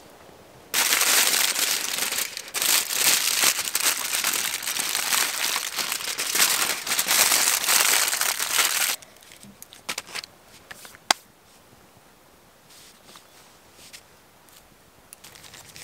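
Aluminium foil crinkling as it is folded and crimped into a packet around green beans. It starts about a second in and stops abruptly after about eight seconds, followed by a few faint clicks and one sharp tick.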